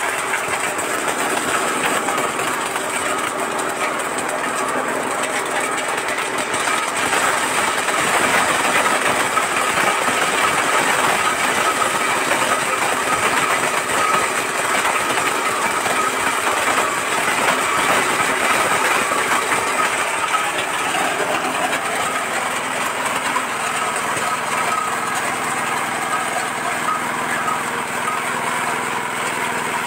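Areca nut cracking machine running steadily, with the rattle of nuts being fed through and cracked. It gets a little louder in the middle.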